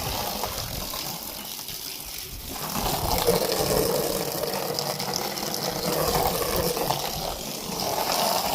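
Pressure washer spraying water, rinsing cleaning solution off the house; the spray gets louder about two and a half seconds in.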